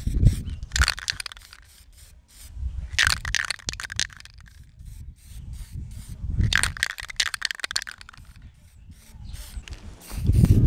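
Aerosol spray-paint can hissing in three short bursts of about a second each, over a low rumble that comes and goes.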